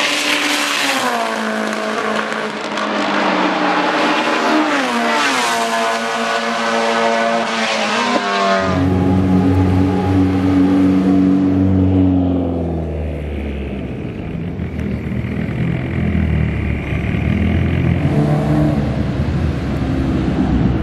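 Proton Satria race car engine at high revs on the straight, its pitch climbing and falling several times as it passes. About eight and a half seconds in it switches abruptly to the same car running at low revs, a deeper, steadier engine note.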